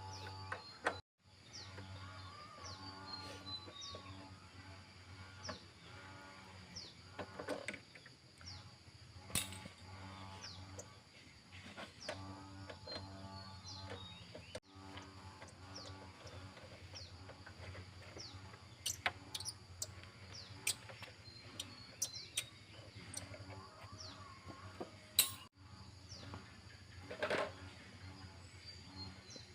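Small birds chirping in short falling notes, repeated every second or so, over a steady low hum, with scattered sharp clicks and knocks.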